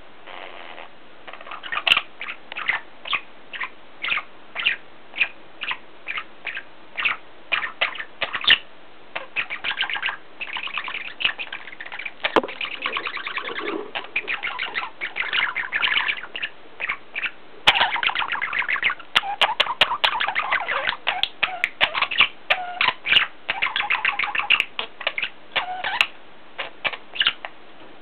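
Pet budgerigars chattering and warbling: a fast, continuous stream of short chirps and twitters, busiest in the second half.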